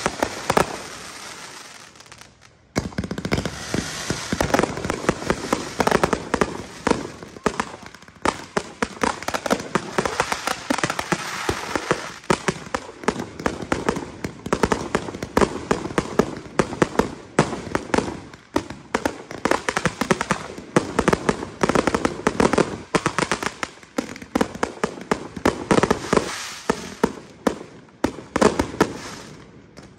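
Fireworks display: a rapid, nearly continuous string of bangs and crackles from aerial shells, with a short lull about two seconds in before the bursts pile up again.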